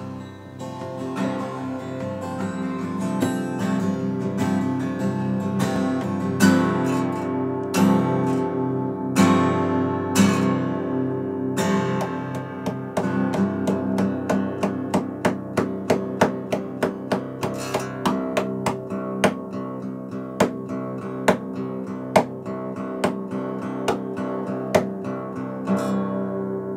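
Solo acoustic guitar, strummed chords ringing for the first half. From about halfway it settles into a steady pattern of sharp strokes about two a second, and near the end it lets the last chord ring out.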